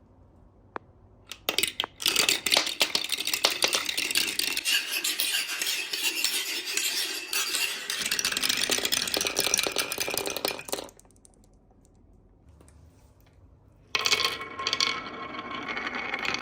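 Many marbles rolling and clattering down a marble run track, a dense rush of hard clicks and rattling. It starts about two seconds in, stops abruptly around eleven seconds, and after a few quiet seconds a second batch clatters in near the end.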